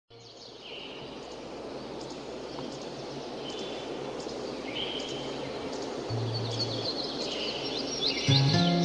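Outdoor ambience fading in: a steady hiss with birds chirping and trilling, growing busier toward the end. Plucked-string music comes in near the end.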